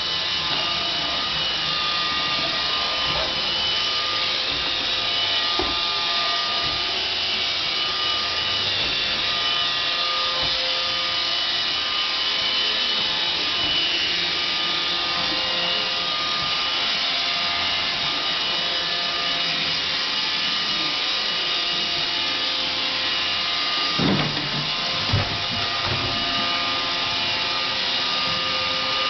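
Roomba robot vacuum running with a steady whir and faint steady whine, with a couple of short knocks near the end.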